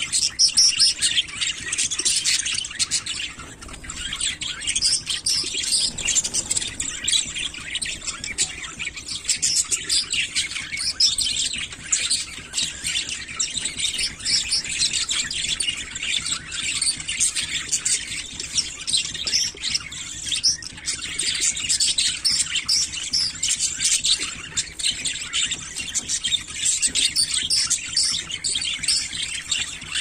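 A flock of budgerigars chattering: many birds chirping and warbling at once in a dense, unbroken stream.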